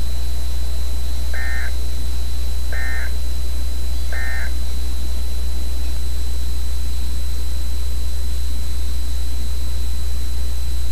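Emergency Alert System end-of-message data bursts: three short, identical bursts of digital data tones about a second and a half apart, closing the severe thunderstorm warning. Under them and after them, a loud steady electrical hum with hiss and a thin high whine from the broadcast feed.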